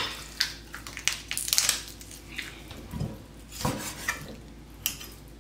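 Large kitchen knife chopping through a raw chicken carcass on a wooden cutting board: a string of irregular knocks of the blade on the board and crunches of bone breaking.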